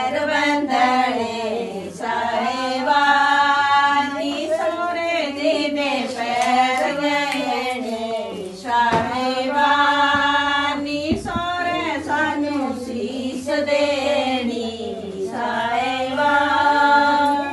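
Female voices singing a slow, chant-like song, each phrase ending on a long held note, about every six or seven seconds.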